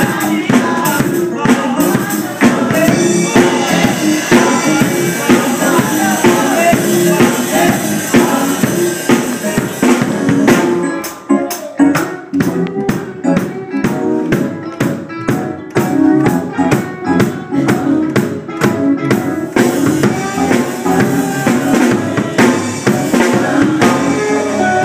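Live gospel music: singers with microphones backed by a keyboard and a drum kit, with tambourine and drums keeping a steady beat.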